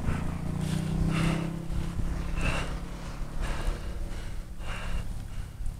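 Cyclist breathing hard, heavy breaths about once a second, while grinding up a steep climb in a low gear. A low steady hum runs underneath and fades away.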